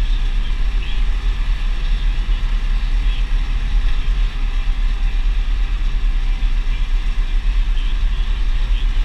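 Deutz DX 4.70 tractor's air-cooled four-cylinder diesel running steadily under way, heard from inside the cab as a deep, even rumble.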